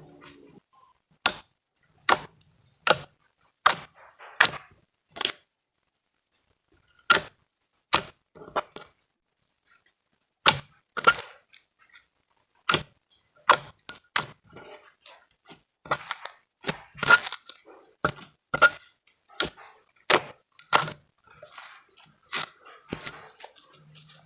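Slime being played with by hand, giving a string of sharp clicks and pops at an irregular one or two a second.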